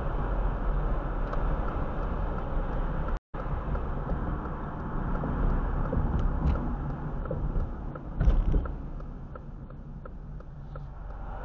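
Car driving, heard from inside the cabin: steady tyre and engine rumble that fades as the car slows down, with a short thump about eight seconds in. The sound cuts out completely for a moment about three seconds in.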